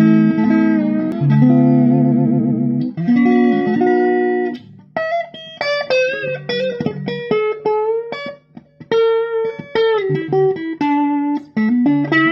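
Vintage Fender Stratocaster electric guitar played unaccompanied. Chords are strummed and let ring for the first four and a half seconds, then a single-note melody is picked note by note, with a few bent notes near the end.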